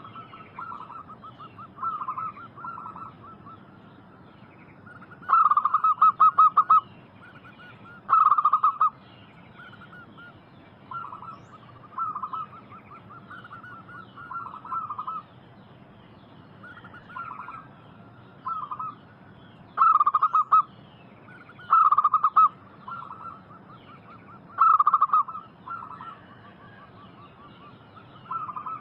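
Zebra doves (perkutut) cooing: short, rapidly stuttering coo phrases repeated every second or two, the loudest ones about five, eight, twenty, twenty-two and twenty-five seconds in, with fainter phrases between. Faint high chirping of small birds runs underneath.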